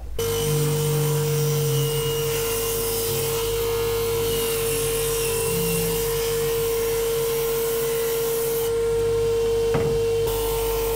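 Table saw running and ripping wooden boat planks to width, a steady hum under the hiss of the blade cutting. The cutting hiss eases briefly about nine seconds in, with a single click.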